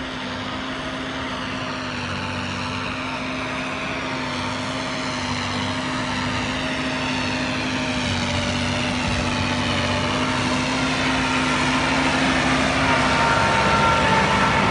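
Engine running steadily, growing gradually louder.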